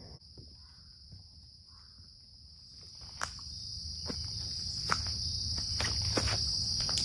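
Steady high-pitched insect chorus, typical of crickets in late-summer woods. From about halfway, footsteps crunch along the trail at a walking pace and a low rumble rises underneath.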